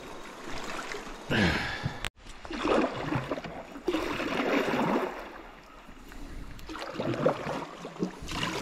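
Canoe paddle strokes swishing through shallow river water, with water washing along the hull, in uneven swells. The sound breaks off sharply for an instant about two seconds in.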